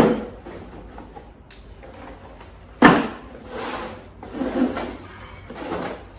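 Cardboard boxes being handled on a table: two sharp thuds as boxes are set down, one at the start and one about three seconds in, then softer scraping and shuffling as they are slid and restacked.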